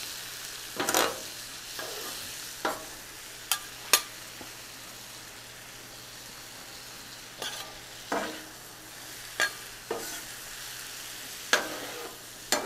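Sausage slices, onions and peppers sizzling on a hot flat-top griddle, with steady frying hiss. Two metal spatulas scrape and clack on the griddle's steel surface as the mix is tossed, in irregular sharp strokes with a lull around the middle.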